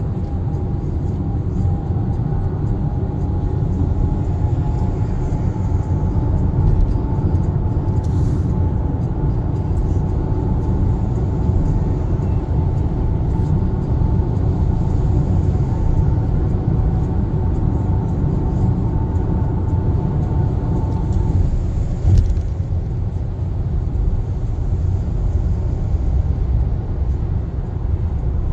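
Steady road and tyre rumble inside the cabin of a Kia Sportage (NQ5) cruising at highway speed. A faint whine rides on top, slowly rising in pitch before fading out about three-quarters of the way through, and a single thump comes shortly after.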